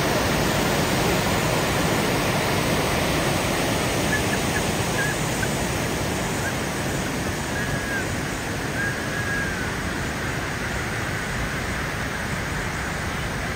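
Bousra Waterfall's falling water giving a steady, even rush, with a few faint short high chirps in the middle.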